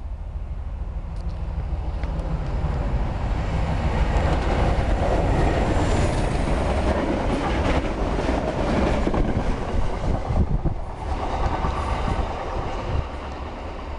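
A Class 47 diesel locomotive's Sulzer V12 engine drones as it approaches and passes close by, with its wheels clattering over the rail joints. It is loudest for a few seconds mid-way. After a sudden change a little after halfway, a quieter, more distant train sound takes over.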